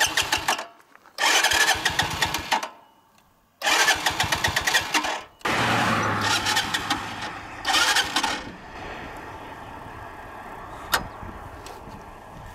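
Cruiser motorcycle engine being cranked by its starter in short bursts, catching about five seconds in, revving briefly, then idling. The engine has just stalled and smoked on the road after straining in fifth gear, and its sound seems odder than usual.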